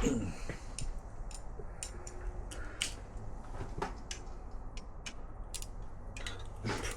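Irregular light clicks and taps of hand tools, a socket and extension bar, being worked on a bolt of a motorcycle engine, over a steady low hum.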